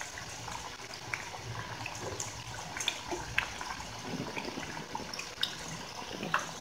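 Paripu vada (chana dal fritters) deep-frying in hot oil: a steady sizzle with scattered small crackles and pops.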